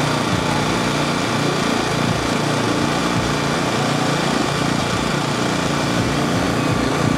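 A small engine running steadily, a constant drone with many steady tones and a slowly sweeping, hollow quality in its low end.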